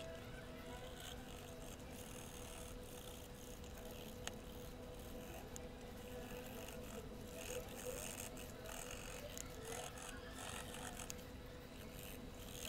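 Faint scrubbing of a cotton swab rubbed over the face of a half dollar coin, coming in short irregular strokes, with a couple of small clicks, over a steady low hum.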